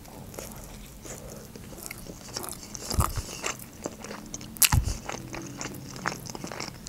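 Close-miked chewing of a mouthful of sushi roll: wet mouth clicks and smacks throughout, with two louder knocks, about three seconds in and just before five seconds.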